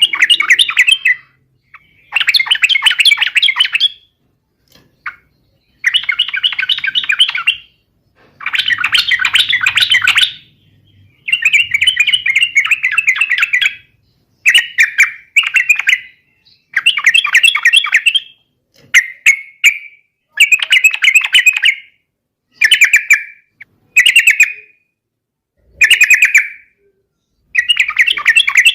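Yellow-vented bulbul (trucukan) singing: about a dozen loud phrases of rapid, bubbly chattering notes, each one to two seconds long, with short pauses between them. This is the bird in full, continuous song (gacor), as used to provoke other bulbuls into answering.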